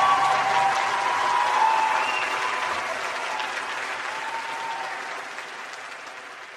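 Concert audience applauding, with a few cheers at the end of a song, the applause slowly fading away. The last ringing notes of the band die out in the first second.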